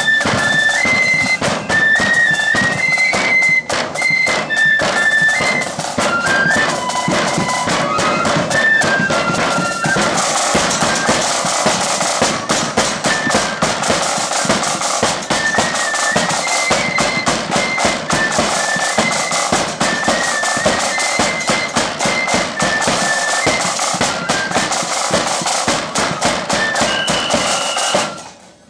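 Loyalist 'blood and thunder' marching flute band playing: flutes carry a melody over a heavily struck bass drum and steady drumming. The music stops abruptly near the end.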